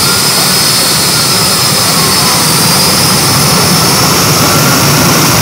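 Jet engine of the Aftershock jet-powered fire truck running loud and steady at high power, shooting flames from its exhaust, with a thin high whine over the noise.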